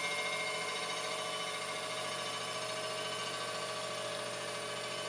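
Crankshaft grinding machine running with a steady whine, grinding the journals of a crankshaft scored by dirty oil.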